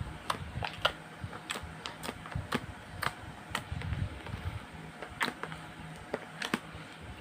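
Slime being kneaded and folded by hand, giving off irregular sharp clicks and pops a few times a second.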